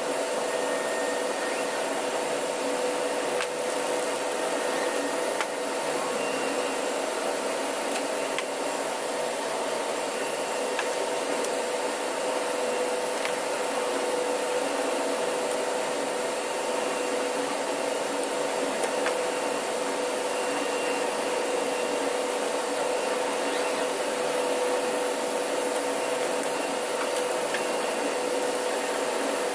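Steady machinery hum: a constant drone with a few steady tones over a broad hiss, like ventilation or running plant in the workshop, with a few faint clicks of metal parts being handled.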